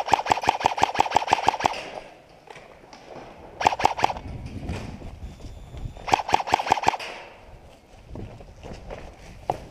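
Airsoft gun firing on full auto in three bursts of rapid clicking shots, about eight a second: a long burst first, then two shorter bursts about four and six seconds in.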